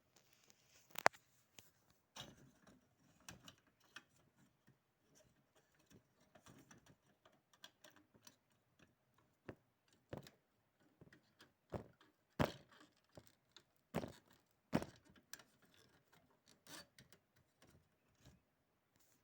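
Scattered quiet clicks and knocks of small parts being handled during an electric fan repair; the strongest come about a second in and twice near the middle to end. The fan is not running.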